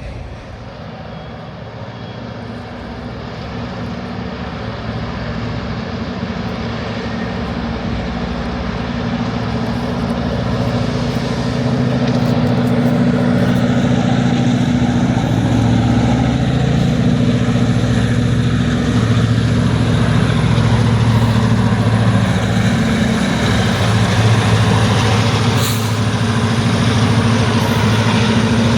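Diesel locomotive engines of a freight train, likely the three EMD GP38s hauling empty oil tank cars, running with a steady low drone. The sound grows louder over about the first twelve seconds as the train approaches, then holds loud as it passes.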